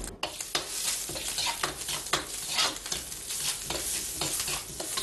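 Scallion, ginger and garlic sizzling as they hit hot oil in a wok. A metal ladle stirs them, scraping and knocking against the pan irregularly over the steady sizzle.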